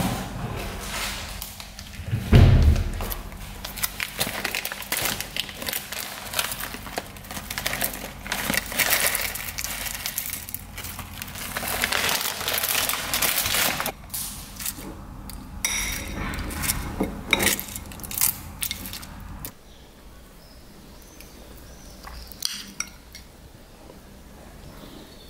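Kitchen handling sounds as a breakfast bowl is made: a spoon clinking on a ceramic bowl and rustling as toppings go onto yogurt and fruit, with a heavy knock about two and a half seconds in. A little before twenty seconds it turns quieter, with only a few light spoon clinks.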